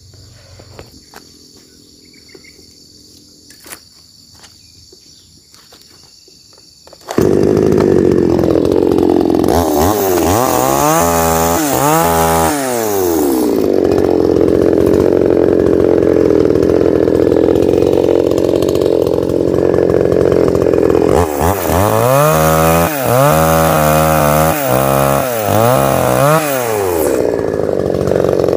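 After several seconds of quiet with a faint insect buzz, a two-stroke chainsaw comes in abruptly, loud, about seven seconds in. It runs at high revs while bucking a fallen tree trunk into fence posts, its pitch rising and falling again and again as the chain bites into the wood.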